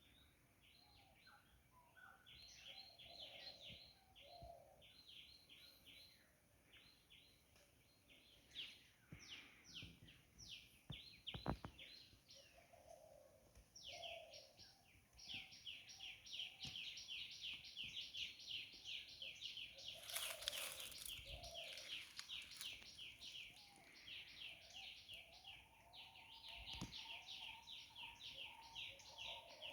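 Small birds chirping in fast runs of short, high repeated notes, faint and continuous, with a brief hiss and a few soft knocks near the middle.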